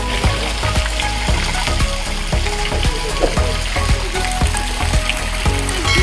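Fountain water splashing steadily into a stone basin, a continuous hiss, under background music with a steady beat.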